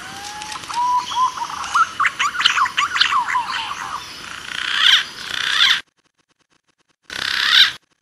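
Green pigeon (punai) calling: a run of whistled notes that rise at first, then wander quickly up and down. The calling cuts off about six seconds in and returns briefly near the end.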